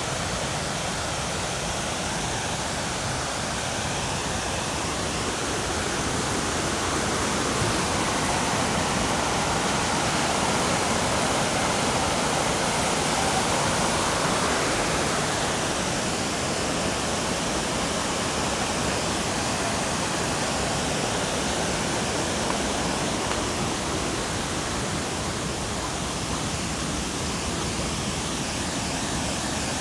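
Natural freshwater waterfall: a steady rush of falling water, swelling slightly about halfway through and easing again.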